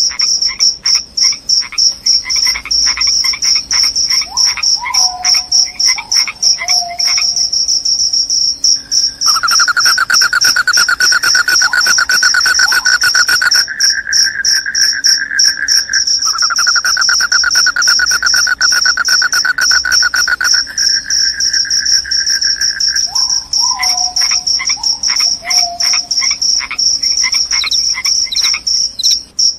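Crickets chirping: a high, fast-pulsing chirp keeps on throughout, joined twice for several seconds by a lower, continuous trill, with a few short falling calls in between.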